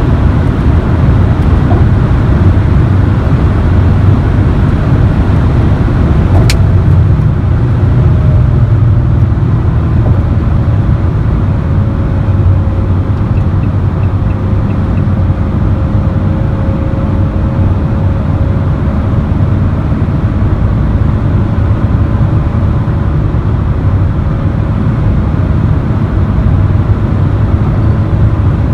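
Inside the cabin of a 2014 Renault Kangoo 1.5 dCi four-cylinder turbodiesel van at around 130–160 km/h: a steady, loud mix of engine drone and wind and road noise, heaviest in the low end. There is a single sharp click about six and a half seconds in.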